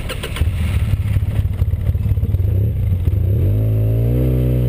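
ATV engine running at a rough, uneven idle with a few clicks at the start, then revving up about three and a half seconds in as the quad pulls away, the pitch rising and holding steady.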